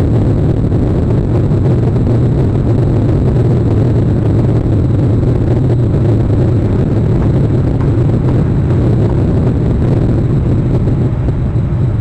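Steady, loud low rumble of wind buffeting an outdoor camera microphone, unbroken throughout with no distinct calls or knocks.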